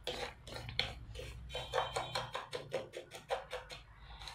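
Wooden spoon stirring coarse sugar in water in a small nonstick frying pan, scraping and clicking against the pan bottom in a quick, irregular run of short strokes.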